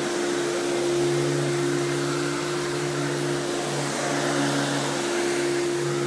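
Simplicity 7350 upright vacuum's 12-amp two-stage motor running steadily: an even hum over a rush of air.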